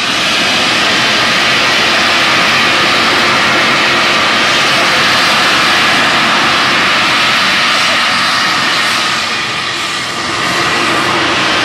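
Steam locomotive Flying Scotsman, an LNER A3 Pacific, blowing off steam from its cylinder drain cocks: a loud, steady hiss that starts suddenly and dips slightly about ten seconds in.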